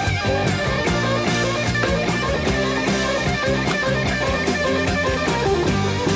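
Background music with a steady beat and held, stepping notes.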